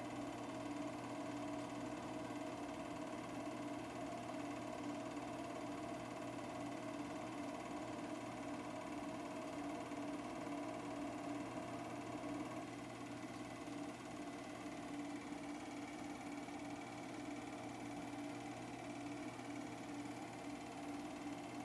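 8mm film projector running: a steady mechanical hum and whir from its motor and film mechanism.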